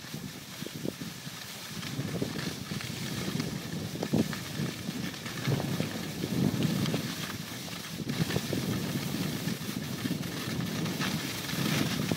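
Alpine snowboard running and carving on snow: a continuous scraping rush that swells and eases in waves, with wind buffeting the microphone and a few sharp knocks.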